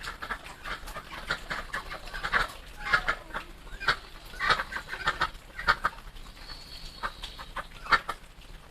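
Chickens clucking, with short calls coming irregularly one after another.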